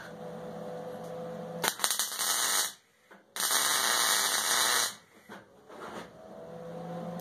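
Wire-feed (MIG) welder arc crackling on mild steel in two runs, the first about two seconds in and a longer one from about three and a half seconds in, welding a square steel hardy post to the plate. A steady hum sits before and after the welds.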